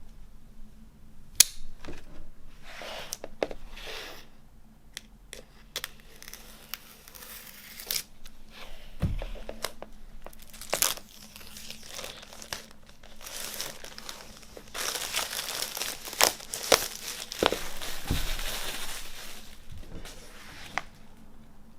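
Vinyl LP packaging being unwrapped by hand: irregular crinkling and tearing with scattered sharp clicks and taps, busiest about two-thirds of the way through.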